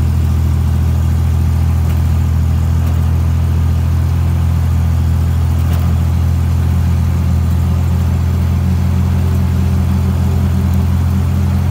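Old Jeep's engine running steadily at cruising speed, a low, even drone with road and wind noise over it.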